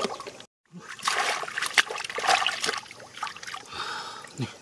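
Shallow muddy water splashing and sloshing as hands grab at catfish in it, in irregular splashes that are loudest in the middle. The sound cuts out completely for a moment about half a second in.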